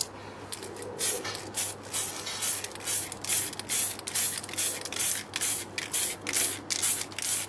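Aerosol can of polycarbonate spray paint hissing in short, quick bursts, about three a second, misting a really light coat of metallic blue onto a clear Lexan RC car body.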